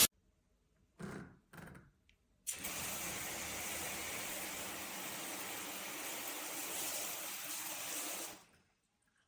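Handheld shower head spraying water, switched by its on/off pause switch. Two short spurts come about a second in. The spray then comes on about two and a half seconds in, runs steadily for about six seconds, and cuts off suddenly.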